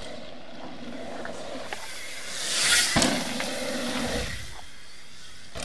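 Mountain bike tyres rolling over a wet gravel trail with wind rushing past the mic. The noise swells a little over two and a half seconds in, with a sharp knock at about three seconds.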